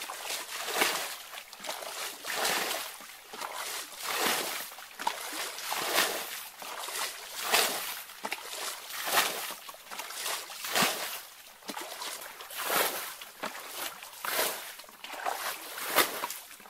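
Muddy water sloshing and splashing as a plastic container scoops it up and flings it out: bailing a shallow canal pool by hand, one splash about every second.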